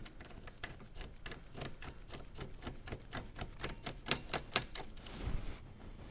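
A quick run of light metallic clicks, about three to five a second, as the front brake caliper's mounting bolts are fitted by hand, with a low bump near the end.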